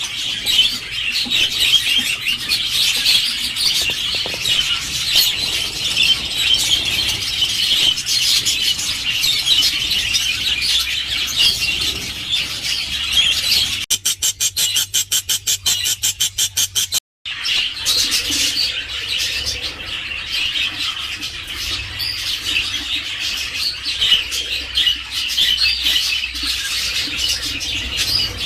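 Colony of budgerigars chattering and chirping continuously, many birds at once. About halfway through, the chatter gives way for about three seconds to a rapid, even ticking of around seven beats a second, which ends in a brief dropout before the chattering resumes.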